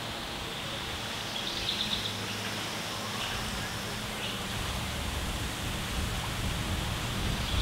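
Lakeside outdoor ambience: a steady wash of background sound, with a short bird trill of quick repeated high notes about a second and a half in, and a low rumble that builds through the second half.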